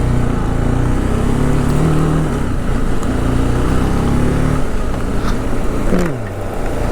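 Motorcycle engine running under way, mixed with wind and rain noise. About six seconds in its note falls sharply, then picks up again.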